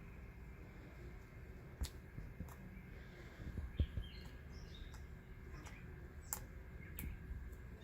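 Homemade glue slime being handled and squished by hand: faint scattered clicks and small squeaky squelches, with a few sharper pops around the middle.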